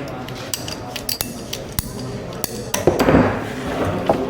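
Irregular sharp clicks and light knocks of hard objects being handled, typical of a plumber's tools and fittings, with a louder clatter about three seconds in.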